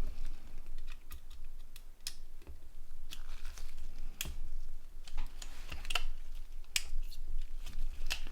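Irregular sharp clicks and taps of a Nokia N80's small plastic parts being handled and fitted together.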